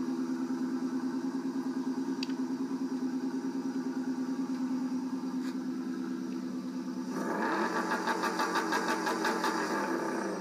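Stage 2 Subaru WRX's turbocharged flat-four engine idling with a steady, pulsing exhaust note. About seven seconds in it is revved up and held higher for about three seconds, then the revs drop back near the end.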